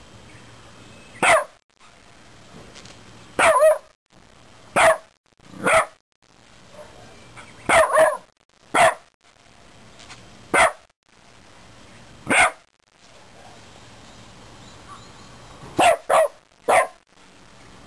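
Shiba Inu barking at a flower chafer beetle on the ground: about a dozen sharp single barks, irregularly spaced, several in quick pairs.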